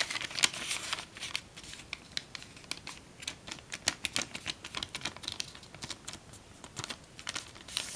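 Self-made tissue foil being folded along its diagonal by hand: irregular crinkling and crackling, with many small sharp clicks, as the sheet is handled and the crease pressed.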